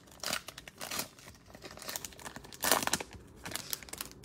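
Foil wrapper of a Prizm football card pack being torn open and crinkled by hand, in several short bursts; the loudest comes a little after halfway.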